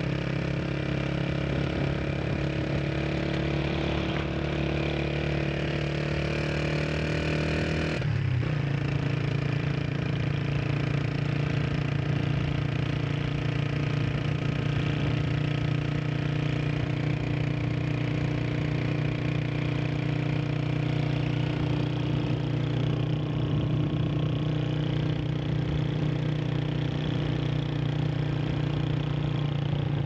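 Motorcycle engine running while riding. The engine note climbs slowly for the first several seconds, shifts abruptly about eight seconds in, then holds steady.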